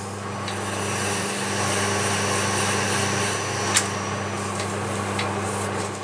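Sandpaper rubbing against a wooden workpiece spinning on a wood lathe: a steady sanding hiss over the hum of the lathe's motor, with a single sharp click about four seconds in.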